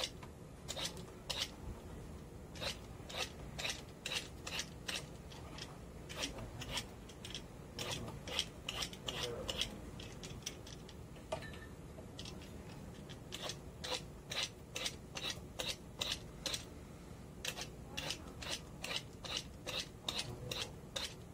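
Hand peeler scraping the skin off a large green gourd in short repeated strokes, about two a second, with a brief lull about halfway through.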